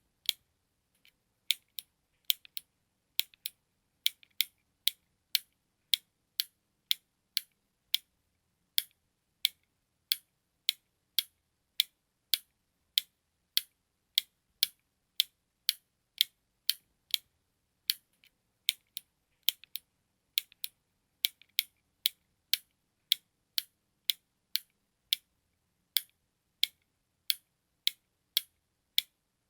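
Button clicking: sharp, high, dry clicks repeating at about two a second in a steady tick-tock rhythm, with sparser, uneven clicks in the first few seconds.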